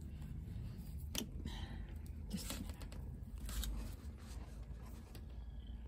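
Close rustling and tearing of fur as a burr is worked out of a cat's tail, with three sharp crackles about a second apart.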